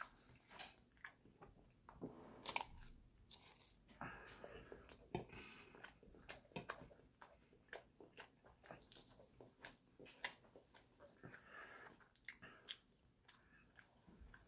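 A person chewing a mouthful of Bananas Foster French toast, faint, with many irregular mouth clicks and smacks.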